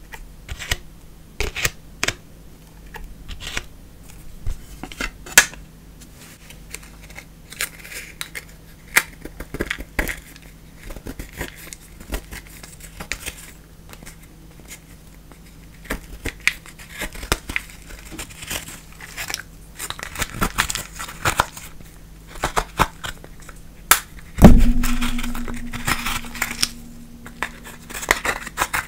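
Slime being squished, stretched and folded by hand, giving irregular sticky clicks and pops. About three-quarters of the way through, a loud knock is followed by a steady low hum lasting a few seconds.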